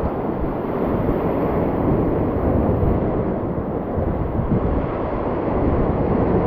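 Wind buffeting the microphone over choppy sea, with waves washing and splashing against rocks; a steady rushing noise with no let-up.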